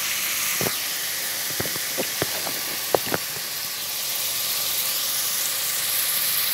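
Hot oil sizzling steadily as fish pieces fry in a pan, with a few light knocks of cookware in the first half.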